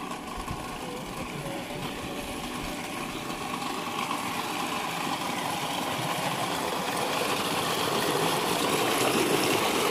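Tubewell running: a thick jet of water gushing from its outlet pipe into a concrete tank, growing steadily louder, over a faint steady hum of the pump machinery.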